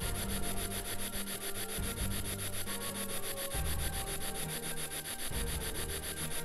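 Spirit box (ghost box) sweeping through radio stations: a steady hiss of static chopped into a fast, even flutter, with short low snatches of sound changing every second or so.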